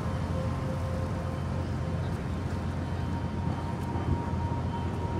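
Steady low rumble of city traffic and urban background noise, with a faint steady tone over it.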